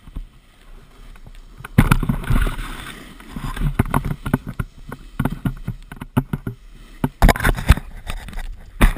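Snow scraping and hissing under a rider's edges while sliding down a packed slope, with irregular knocks and heavy thumps of the body-mounted camera, loudest in a scrape a couple of seconds in and in thumps near the end.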